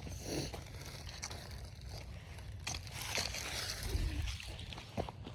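Handling noise on the filming phone's microphone: rustling, scraping and crunching with a few knocks as the phone is moved and set in place, over a low rumble.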